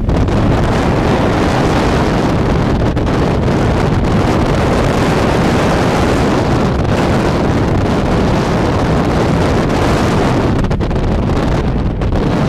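Strong wind blowing across the camera microphone: loud, steady wind noise, easing briefly near the end.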